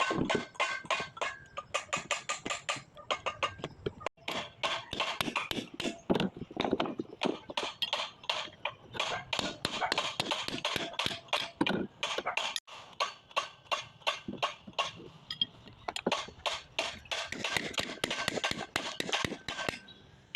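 Rapid, irregular metal-on-metal clinking and tapping, several strikes a second, some ringing briefly: hand tools working on metal parts.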